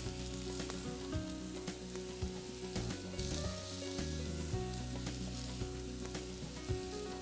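Oiled slices of pepper, aubergine, courgette and onion sizzling on a hot ridged griddle pan, with a few light clicks.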